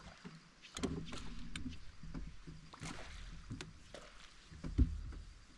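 Scattered knocks and clicks on a small boat over a low rumble, with a heavier thump about five seconds in.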